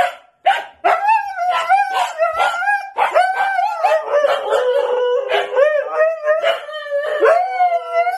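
Siberian huskies howl-talking: long wavering 'woo-woo' vocalizations that glide up and down in pitch in speech-like phrases.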